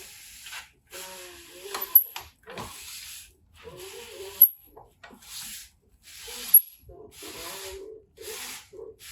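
Back-and-forth hand rubbing strokes on the aluminium exhaust, repeating with short pauses and some squeaking of the material. A short, sharp, very high chirp cuts in about every two seconds.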